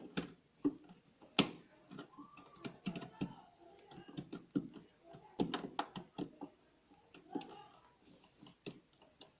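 Irregular clicks and light knocks of a new spring clutch gear being fitted onto the gearbox of a top-load washing machine.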